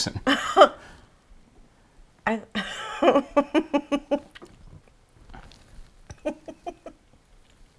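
A man laughing in two bursts of short rapid 'ha' pulses, about five a second, with the second burst softer.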